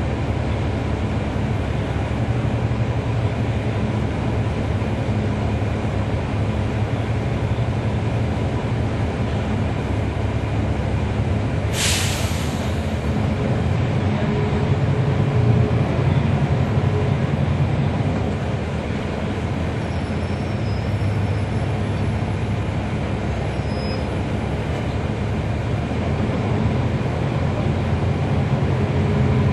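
Inside a 2012 NABI 40-SFW transit bus under way, its Cummins ISL9 diesel engine running. The engine gets louder about halfway through and again near the end as it pulls. A short, sharp hiss of air comes about twelve seconds in.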